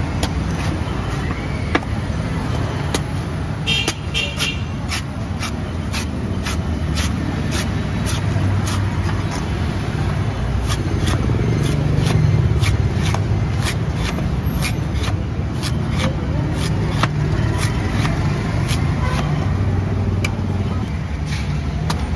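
A large broad-bladed knife chopping and shaving the husk off a young green coconut: repeated sharp chops, irregular, about one or two a second, over a steady low rumble of street traffic.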